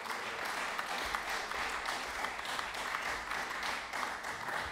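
Many people clapping in steady applause at the close of a speech.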